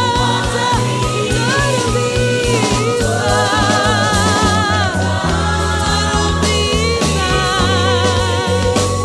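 Gospel choir and band performing a worship song: sung voices with vibrato over sustained bass notes and a steady drum beat.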